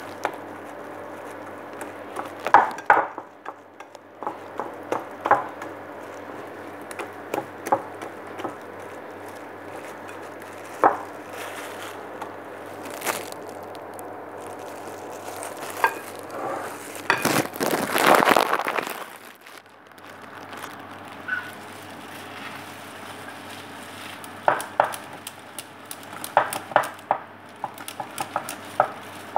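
A wire whisk beats thick donut batter in a glass bowl: a wet stirring noise with scattered sharp clinks of the whisk against the glass, and a louder rush of stirring about 17 to 19 seconds in. A steady low hum sits underneath.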